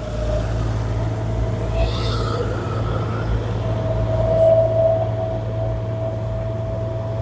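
Vehicle engine running steadily: a low rumble with a steady whine that grows louder a little past halfway and holds.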